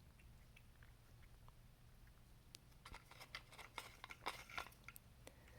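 A dog faintly chewing and crunching food taken from a puzzle box: a run of small crisp clicks that grows busier about halfway through.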